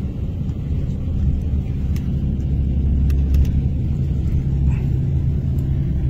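Steady low rumble of engine and tyre noise, heard from inside a moving vehicle travelling along a highway.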